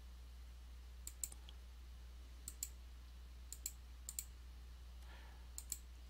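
Computer mouse buttons clicking faintly, in close pairs about every second, five pairs in all, over a steady low electrical hum.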